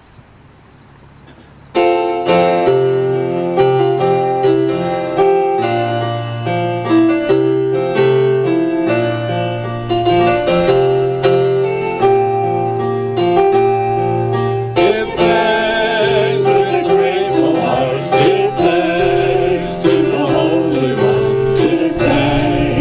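A keyboard plays a hymn introduction in struck chords, starting about two seconds in; voices join in singing about fifteen seconds in.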